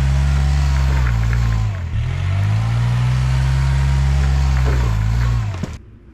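Kubota engine revving hard under load as it pulls on a rope tied to a stuck tree; the engine note sags and climbs back about two seconds in, then holds high until it cuts off suddenly near the end.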